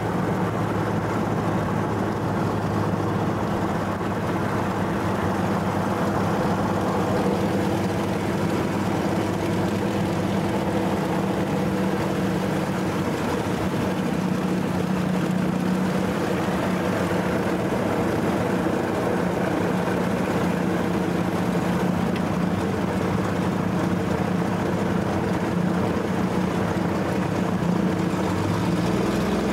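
Pitts biplane's piston engine and propeller running steadily, heard from inside the cockpit, with a slight rise in pitch near the end.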